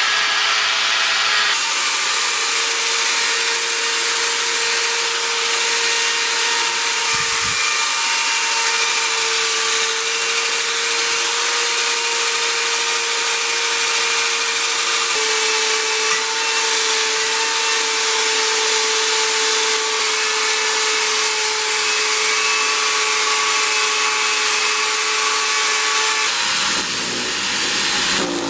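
Parkside PBH 800 A1 800-watt hammer drill running steadily under load while drilling, its motor whine holding one pitch with small steps up and down. About two seconds before the end the sound changes as the bit goes into a plastered wall.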